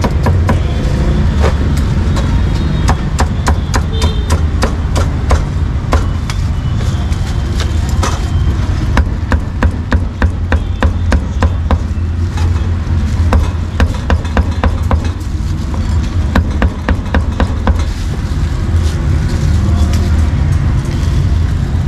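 Cleaver chopping cucumber and roast meat on a thick round wooden chopping block: quick strikes in runs, with short pauses between them. A steady low rumble of street traffic runs underneath.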